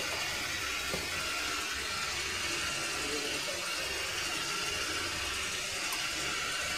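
Whole spices (bay leaves, cardamom, cloves, cinnamon) sizzling steadily in hot oil in a pressure cooker.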